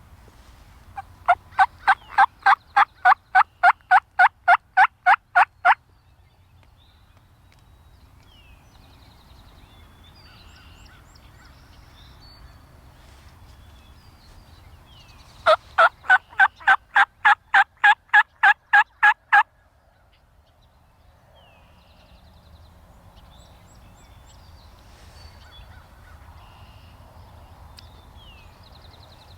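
Two long runs of loud, evenly spaced turkey yelps, about three to four notes a second, each run lasting about four to five seconds, typical of turkey hunters calling to a gobbler. Faint songbird chirps fill the gaps between the runs.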